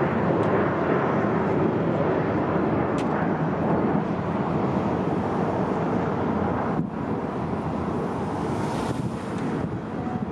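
Steady aircraft engine noise mixed with wind buffeting the microphone. It eases a little about seven seconds in.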